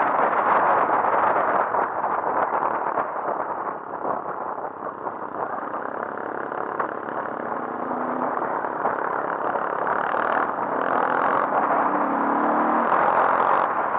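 Dirt bike engine running under way, heard from the bike itself with a heavy, distorted roar of wind and engine on the microphone. The sound drops about four seconds in as the throttle eases and builds back up over the following seconds.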